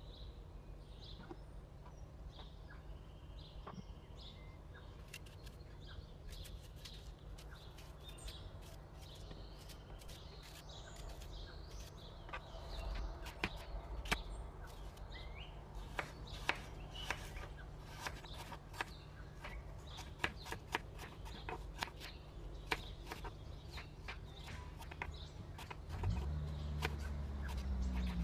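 Knife cutting and dicing an apple on a cutting board: irregular clicks and taps of the blade against the board, coming thicker from the middle onward. Under them are a low steady hum and faint bird chirps, and a low rumble rises near the end.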